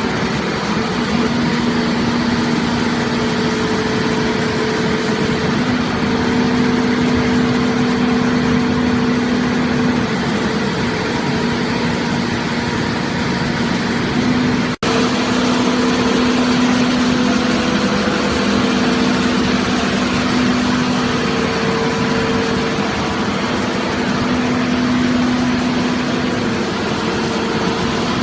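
Heavy machinery running steadily: an engine-like hum with steady tones held above it, which drops out for an instant about halfway through.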